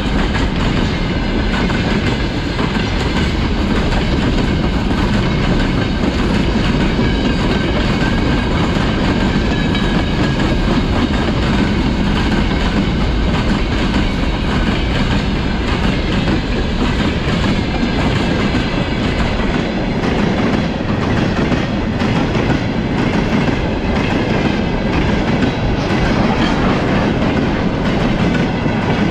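Freight train wagons rolling past at close range: a steady, loud rumble of steel wheels on the rails.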